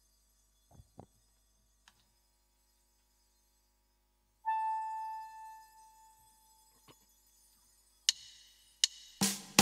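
Mostly quiet, with a single ringing musical note about halfway through that fades over a second and a half. Near the end come a few sharp percussive strikes as the band's music with drums starts up.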